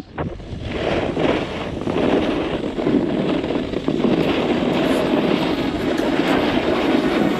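Wind rushing over the camera microphone and snow hissing under a rider sliding fast down a snowy slope. It builds up over the first second or two, then holds steady.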